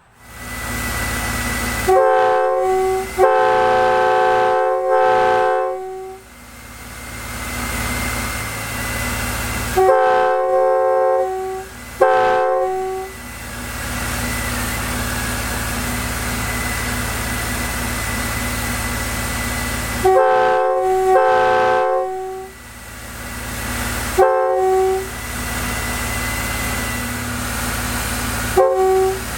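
Nathan K3 three-chime air horn, a mixed set with raised-letter bells 2, 3A and 4, sounding its chord in about seven blasts, some long and some short. A steady hiss runs underneath between the blasts.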